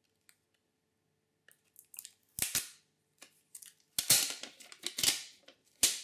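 Handling noise from a TP-Link Archer TX20U USB Wi-Fi dongle: sharp plastic clicks and crinkly crackling as its cap is worked and its clear protective film is peeled off. There are several snaps, the loudest about four seconds in and again near the end.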